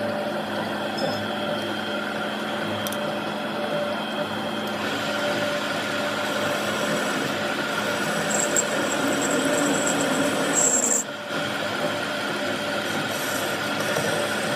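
Workshop machinery running steadily: a constant hum under an even hiss, which changes slightly about five seconds in and dips briefly about eleven seconds in.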